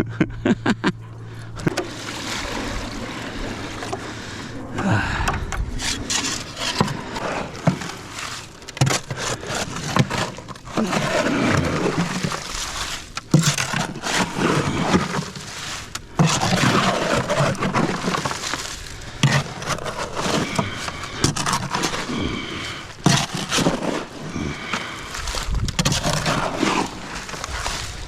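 Repeated scraping and knocks of a hand tool working concrete mix for a fence post hole, in uneven strokes.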